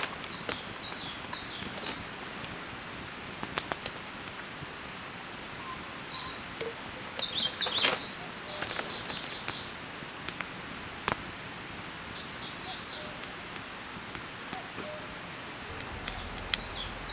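Small birds chirping in quick runs of short, high notes, four bursts spread through the stretch, over a steady outdoor hiss, with a few sharp isolated clicks.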